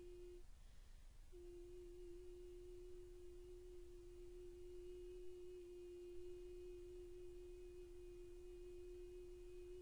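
A solo soprano voice singing one soft, long-held note with a pure, almost tone-like sound. It breaks off for a breath about half a second in and is taken up again a second later.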